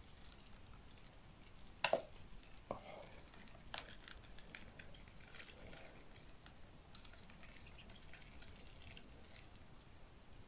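Mostly quiet room, with one sharp click about two seconds in and two lighter clicks over the next two seconds: small knocks from the feeding tweezers and the plastic spider enclosure being handled.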